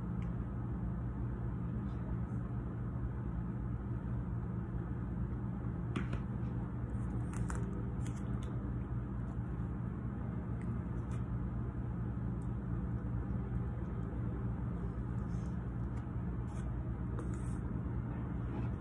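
A steady low mechanical hum, with a few light clicks of a spoon against a bowl of oatmeal about six to eight seconds in and again near the end.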